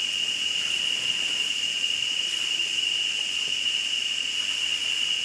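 Steady high-pitched drone of cicadas, one unbroken buzzing tone that holds at an even level throughout.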